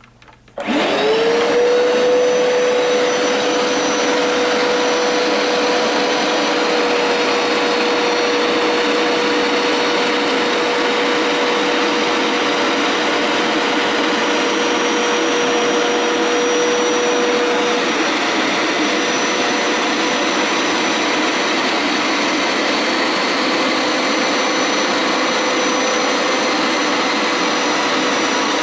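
Hoover Power Scrub Deluxe carpet washer starting up about half a second in with a quick rising whine, then running steadily through its wash pass on carpet.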